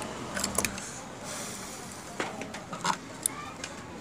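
A few light clicks and taps of metal test probes being handled and set against the opened phone's circuit board, over a steady background noise.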